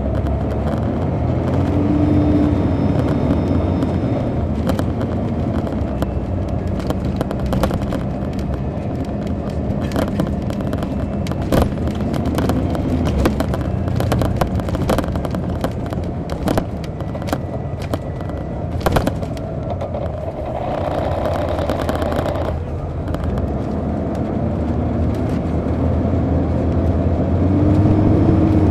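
Interior sound of a 2002 MCI D4000 coach from the rear seats: its Detroit Diesel Series 60 engine, behind an Allison automatic, pulls with its pitch rising, holds steady, sags about two-thirds through and climbs again near the end. Sharp knocks and rattles come through the middle, and a hiss lasting about two seconds comes around two-thirds through.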